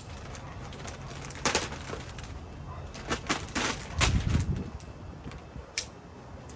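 Plastic wrapping crinkling and crackling in several short bursts as a plastic-wrapped dual electric fan shroud is lifted and handled, with a dull knock about four seconds in.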